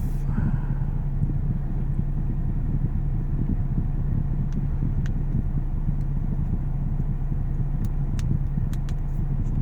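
A steady low mechanical hum throughout, with a few faint light clicks about halfway through and again near the end.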